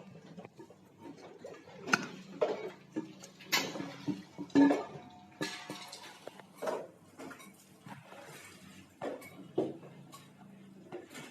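Scattered clinks and clatters of metal and other hard objects, irregular and a second or so apart, over a steady low hum.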